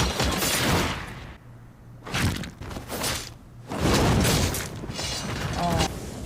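Anime soundtrack sound effects: a few loud crashing, booming impacts, the longest about four seconds in.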